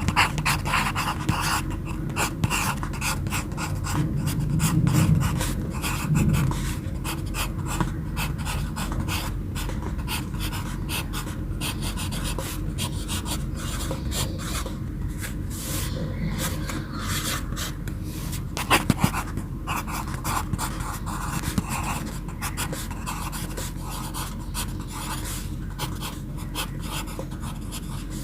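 Pencil writing on paper: a continuous run of quick, irregular scratching strokes, over a steady low hum. A sharper double tap of the pencil comes about 19 seconds in.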